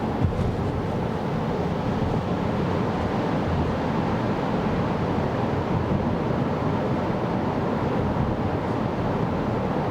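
Steady road and tyre rumble of a 2024 Kia Carnival Hybrid minivan driving on a snowy road, with one light knock just after the start.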